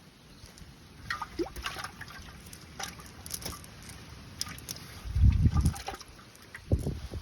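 Water splashing and trickling in short, irregular bursts, followed about five seconds in by heavy low rumbles.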